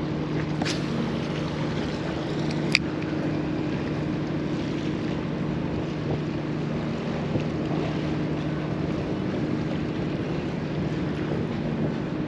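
Steady low hum of ship engines across the harbour, with water lapping and light wind on the microphone. Two sharp clicks in the first three seconds, the louder one about three seconds in.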